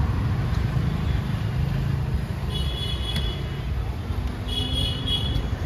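Steady low outdoor rumble, like road traffic, with two short bursts of high-pitched chirping, about halfway through and again near the end.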